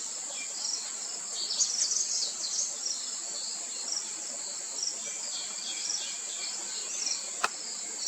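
Steady high-pitched shrilling of insects, with birds chirping over it in short bursts about a second and a half in and again around five seconds in. A single sharp click comes near the end.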